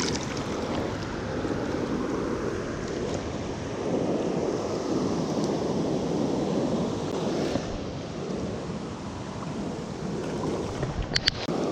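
Fast river water rushing steadily through rapids, with a few sharp clicks near the end.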